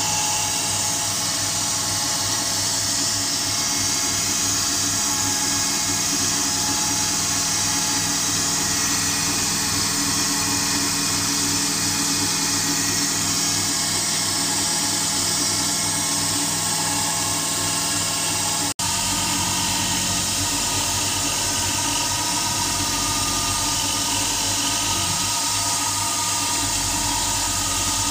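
Converted Titan TM20LV CNC mill (a G0704/BM20 clone) milling billet aluminium with an end mill on a full-depth three-flute clean-up pass: steady spindle whine mixed with the hiss and chatter of the cut. About two-thirds through there is a brief break, after which the cutting sound carries on with a slightly different pitch.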